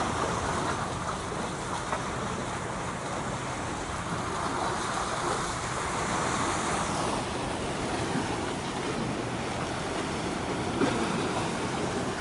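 Sea waves washing, a steady rush of noise that swells and eases twice, with some wind on the microphone.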